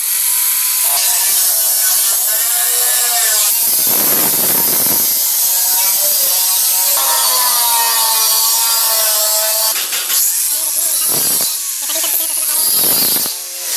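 A power tool cutting through a sheet-metal cable tray: a continuous loud hiss with a motor whine that rises and falls as the cut loads it, and heavier swells now and then.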